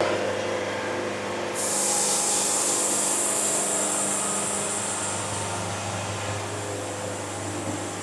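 Band sawmill running steadily with a low machine drone, its blade sawing through a walnut log; a loud high hiss starts abruptly about a second and a half in and carries on as the cut goes.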